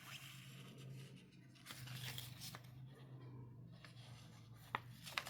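Faint rustling and handling of plastic-packaged sticker sheets and washi tape, with two sharp clicks near the end, over a low steady hum.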